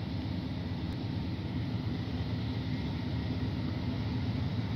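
Low, steady rumble of a CN freight train's two diesel locomotives, a GE C44-9W and an EMD SD70M-2, approaching from a distance and slowly growing louder.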